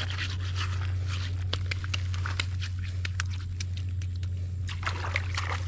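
Plastic bait bag crinkling and crackling in irregular clicks as hands work inside it, with a louder rustle near the end, over a steady low hum.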